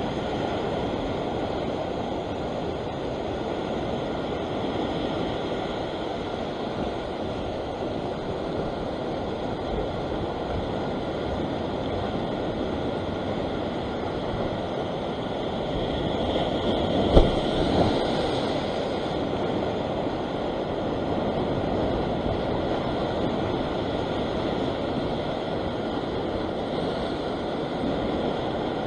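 Ocean surf washing over a rock ledge: a steady wash of waves, with one surge building louder a little past halfway that carries a single sharp knock.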